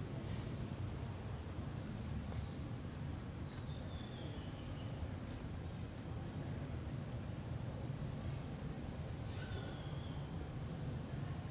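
Insects droning steadily at one high pitch over a low, even background rumble, with a couple of faint short falling chirps and a few soft clicks.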